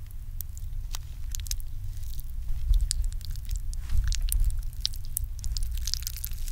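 Metal chopsticks breaking an egg yolk and stirring it through sauce-coated black bean ramen noodles: many short clicks and wet squishes, more of them in the second half, over a steady low hum.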